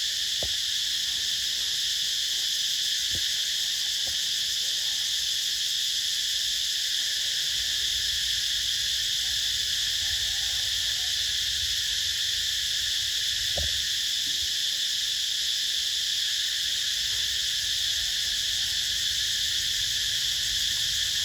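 Steady, high-pitched drone of an insect chorus running without a break, with a few faint soft knocks.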